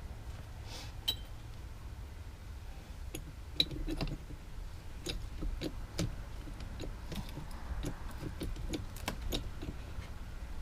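Hand-pumped hydraulic bottle jack being worked under a 4x4 post: a run of light metallic clicks and knocks, about two a second, starting about three seconds in.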